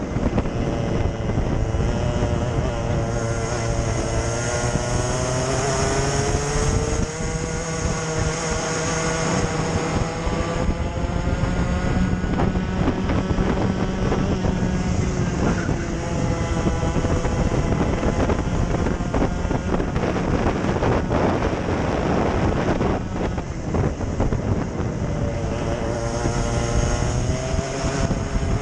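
Racing kart engine heard from onboard at full race pace, its revs climbing on the straights and dropping into the corners several times over.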